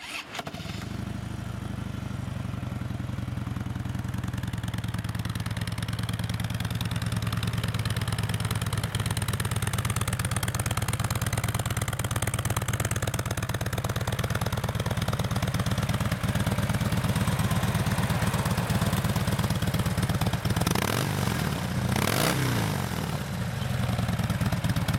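Harley-Davidson Dyna Fat Bob's 96-cubic-inch fuel-injected Twin Cam V-twin idling steadily, with a brief rev rising and falling about 21 to 23 seconds in. It runs smoothly, which the dealer calls running perfect, with no issues.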